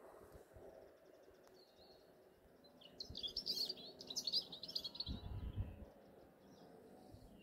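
A small songbird sings a quick, high twittering phrase starting about three seconds in and lasting some two seconds, after a few faint chirps earlier on. A brief low rumble comes near the end of the song.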